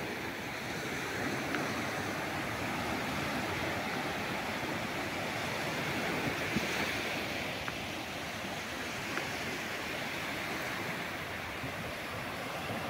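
Small ocean waves breaking and washing up over a flat sandy shore: a steady surf noise that swells and eases gently.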